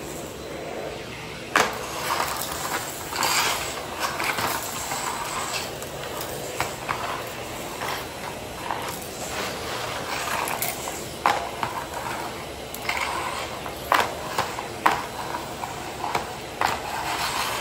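Vacuum cleaner running as its floor head is pushed over a mat and concrete floor, sucking up scattered small crunchy debris that clicks and rattles irregularly up the wand, with a few louder clacks.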